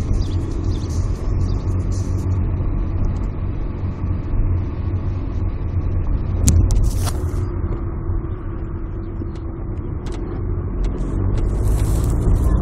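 Volkswagen Golf Mk4 1.9 TDI diesel engine running steadily with a low drone and its turbocharger whistle, and two short knocks about halfway through.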